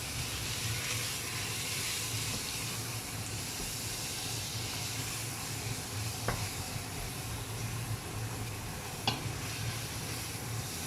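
Onion-tomato masala with freshly added ground spices sizzling steadily in a pan, with two light knocks about six and nine seconds in.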